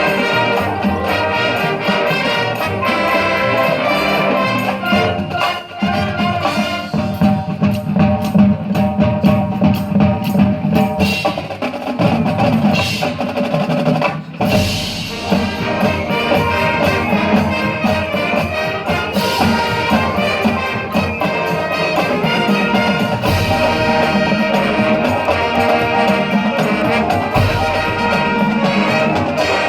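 High school band playing brass and percussion music together, trumpets and trombones over drums, with a momentary break in the sound about halfway through.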